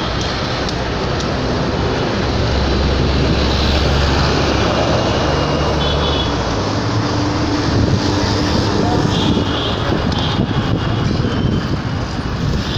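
Busy city street traffic: a continuous mix of vehicle engines and road noise. A heavy low engine rumble from a nearby vehicle stands out for a few seconds in the first half.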